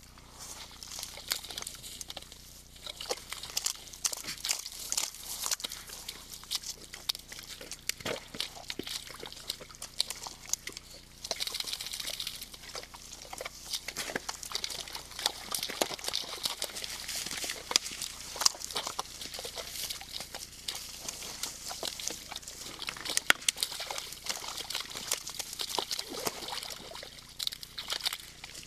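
Red deer moving about in a muddy wallow: mud squelching and sloshing under their hooves, with many scattered clicks, crunches and knocks.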